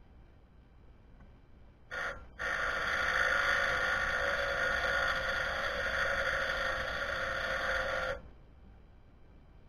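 A short hiss about two seconds in, then, after a brief gap, a steady hiss that lasts about six seconds and cuts off suddenly.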